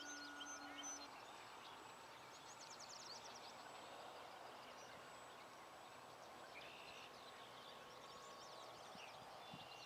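Near silence: faint outdoor ambience with small birds chirping in short rapid trills, and a faint steady hum that stops about a second in.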